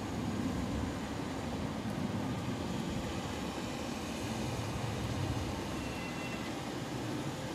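Electric multiple-unit passenger train pulling into the far platform and slowing, a steady low rumble of wheels and motors across the tracks.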